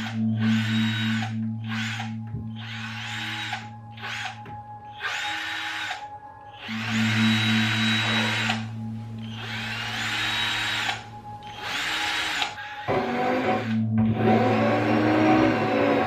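Power drill running in about nine short bursts of a second or two each, starting and stopping sharply.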